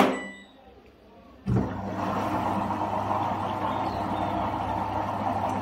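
A washing machine starting up: a sharp click at the start, then about a second and a half later water rushes steadily into the drum with a low hum under it. The water cuts off abruptly just as the sound ends.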